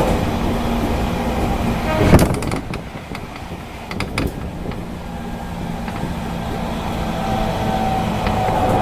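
JR Kyushu 813 series electric train pulling into a station stop: a steady running noise, a loud burst of hiss about two seconds in with a few sharp clicks, then a quieter, steady hum of the train's equipment with faint tones.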